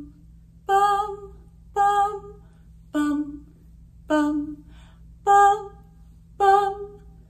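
A woman's voice singing short single notes unaccompanied on a neutral syllable, six of them about a second apart, stepping between a lower and a higher pitch.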